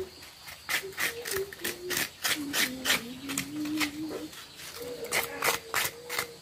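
A hand scraper shredding a peeled pale-green vegetable, about three quick scraping strokes a second, with a brief pause after about four seconds before the strokes resume.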